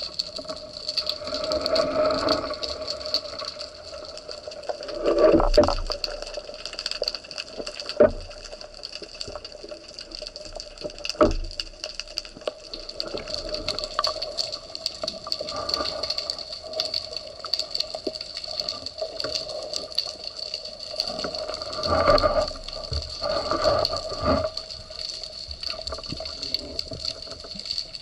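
Water sound picked up underwater by the diver's camera: a steady rushing hiss with swells, and a few sharp knocks a few seconds apart.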